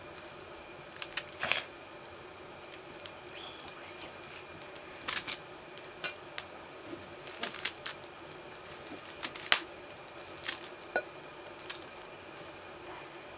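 A kitchen knife cutting through a handful of leafy greens held over an aluminium pot. Short, sharp cuts come irregularly, about one every second or so, over a faint steady hum.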